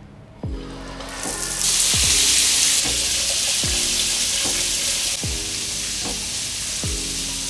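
Water spraying from an overhead rain shower head, a steady hiss that comes up about a second in, is loudest for about a second, then eases slightly. Background music with a regular beat plays underneath.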